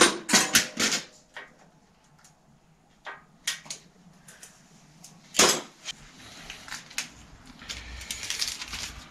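Metal tools and bike parts clinking and knocking as they are handled, in scattered sharp clicks, with a louder knock about five and a half seconds in.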